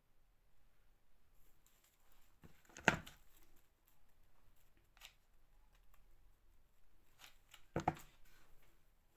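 Quiet handling of a hot glue gun and a fabric flower: two sharp knocks, about three seconds in and near the end, with a few small clicks and faint rustling between.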